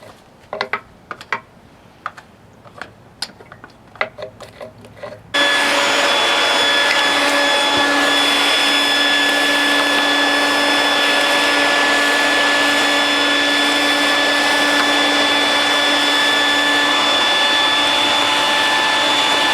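A few light clicks and knocks of handling, then about five seconds in a vacuum cleaner switches on and runs steadily with a constant motor whine.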